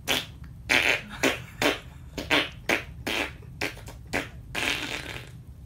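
A quick run of short, breathy, raspy mouth sounds, about two a second, with one longer puff near the end, over a low steady hum.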